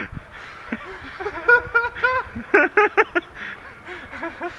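Young men laughing in bursts: a run of high-pitched laughs, then quick, rapid ha-ha pulses after the middle.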